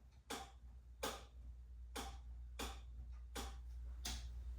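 Turn-signal flasher relay clicking steadily, about one click every three-quarters of a second, over a faint low steady hum.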